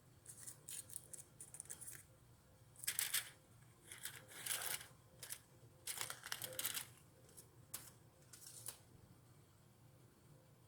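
Aluminium foil crinkling in a string of short, irregular bursts as it is pressed around small dessert molds.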